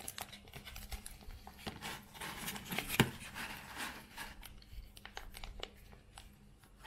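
Foil sauce sachet crinkling and crackling as it is squeezed and kneaded to force out thick, brick-like chili paste, with one sharper crackle about three seconds in.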